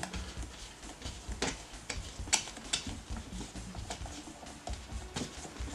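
A Helios-44 lens being unscrewed from the Zenit TTL's M42 screw mount: faint, scattered small clicks and ticks of metal threads and fingers on the lens barrel.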